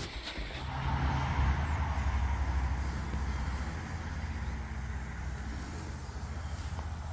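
Low, steady rumble of a motor vehicle's engine, swelling about a second in and then holding steady.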